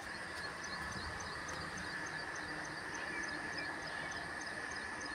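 Open farmland ambience: steady background noise with a small high chirp repeating evenly, about three times a second, as from an insect or small bird.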